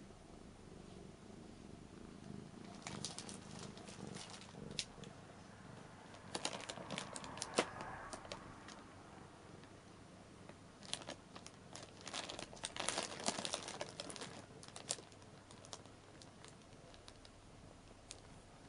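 A Ragdoll cat purring quietly, then plastic-wrapped clothes in an open suitcase crinkling in bursts three times as the cat steps about on them.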